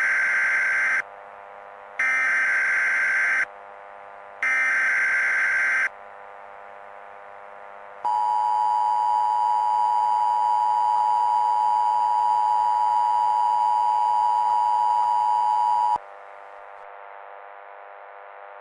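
Emergency Alert System broadcast tones: three harsh, buzzing data bursts of the SAME header, each about a second and a half long with short gaps between, then the steady two-tone EAS attention signal held for about eight seconds. It marks the start of a broadcast emergency alert, here a hazardous materials warning. A faint steady drone sits underneath.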